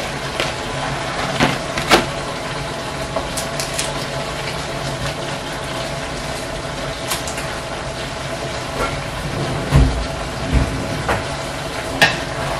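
Pork and vegetable stew frying in a pan with a steady sizzle while stock cubes are crumbled in and a wooden spoon stirs it. There are scattered sharp taps of the spoon against the pan, with a couple of duller knocks near the end.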